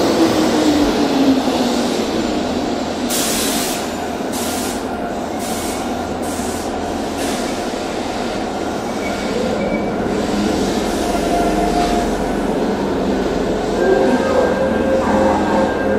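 Keihan electric train running at a station platform: motor whine falling in pitch at first, steady rumble of wheels on the rails, and a series of short hissing bursts a few seconds in, with the motor whine returning near the end.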